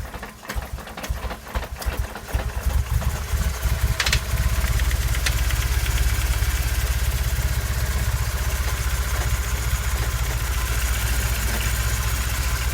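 BMW M43TU four-cylinder petrol engine starting: it turns over unevenly, catches about four seconds in, and then idles steadily. The owner reports the engine as knocking.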